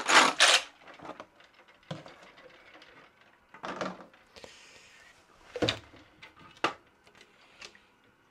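Plastic keycaps and their wash container being handled: scattered light clicks and knocks, a few brief clatters, and a short soft hiss about halfway through.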